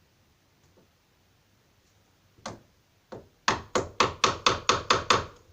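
Hammer striking a wood chisel into the door's edge, cutting the outline of the deadlock mortise: two single blows, then a quick run of about eight strikes at about four a second.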